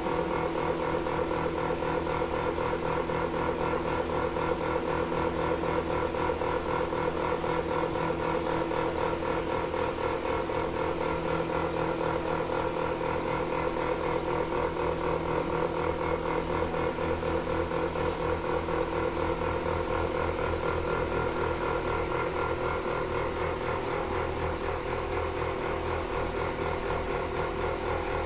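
Milking machine's motor-driven vacuum pump running steadily: an even, fast-pulsing hum with several held tones.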